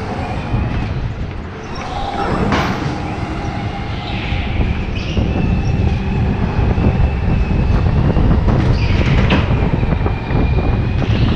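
Indoor racing kart at speed, heard from on board: a loud, steady rumble of the kart running, with high tyre squeals in stretches and a couple of sharp knocks.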